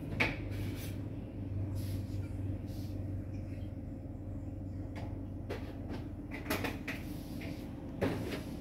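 Several short knocks and clacks of things being handled, spaced a second or more apart, over a steady low hum.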